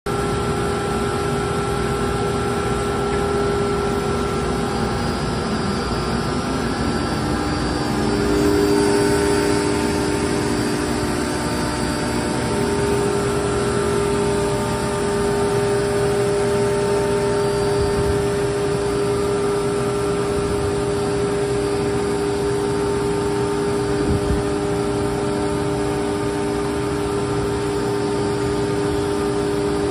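Industrial machinery running steadily, with several steady whining tones over a mechanical hum; the tones step to new pitches a couple of times, about seven and twelve seconds in.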